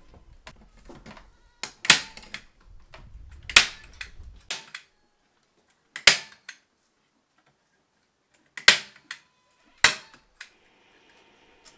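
Hand staple gun driving staples into a wooden frame to fasten chicken wire: about seven sharp snaps at irregular intervals, with rustling and handling of the wire mesh during the first few seconds.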